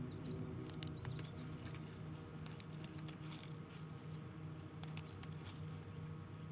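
Spinach leaves being picked by hand: scattered sharp snaps and rustles of stems and leaves breaking, over a steady low hum.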